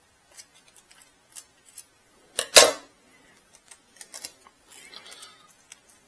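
Scissors snipping a small piece off a strip of paper mending tape: a few short, sharp clicks and snips, the loudest about two and a half seconds in, with light rustling of the tape being handled.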